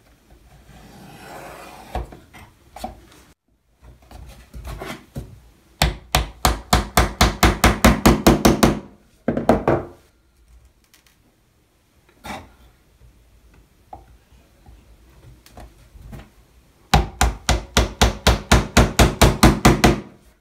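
A small hammer tapping pins through a wooden deck plate into the bulkheads of a model ship hull. It comes in two runs of quick, even light taps, about six a second: the first a few seconds in, the second near the end. Softer scraping and handling of the wood come in between.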